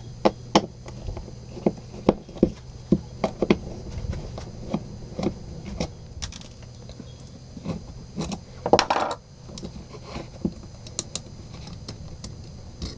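Screwdriver working the screws out of a wall-mounted 220 V power socket: irregular small clicks and knocks of the tool, screws and socket plate, with one longer, louder noise about nine seconds in.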